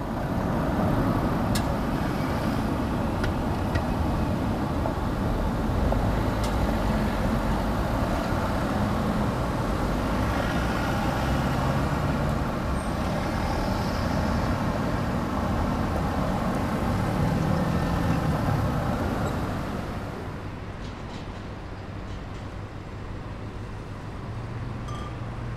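Road traffic with a vehicle engine running close by, a steady rumble and hum that drops noticeably about twenty seconds in.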